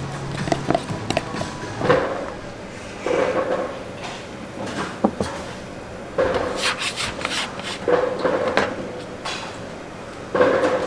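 Stiff youtiao dough being mixed and worked by hand on a work surface: bursts of rubbing and pushing every couple of seconds, with a few sharp knocks between them.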